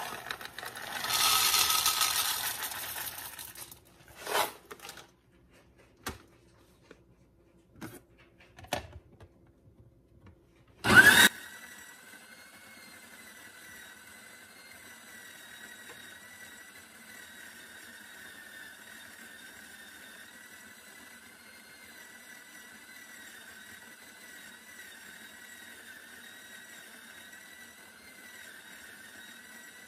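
Coffee beans poured from a bag into the plastic hopper of a Bodum Bistro electric burr grinder for about three seconds, then a few scattered clicks. About eleven seconds in, a loud sharp click comes as the grinder starts, and it then runs with a steady whirring whine, grinding the beans. The grinder is really loud but is heard here at a turned-down volume.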